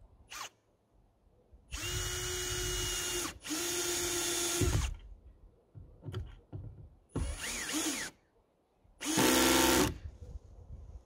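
Cordless drill driving screws into a wooden support strut, in four short runs of a second or so each with pauses between, the last one the loudest.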